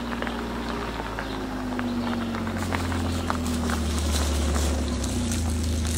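Kawasaki Mule Pro-FXT side-by-side's three-cylinder engine running at low speed as the vehicle approaches, growing louder as it nears, with tyres crunching on the gravelly dirt trail.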